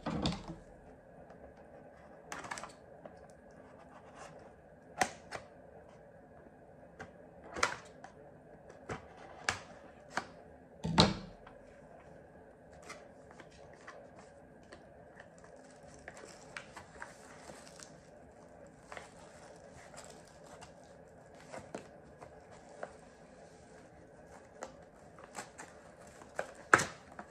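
Irregular clicks and taps of a small cardboard toy box and its tightly fitted packaging being handled and opened, with a louder knock about eleven seconds in.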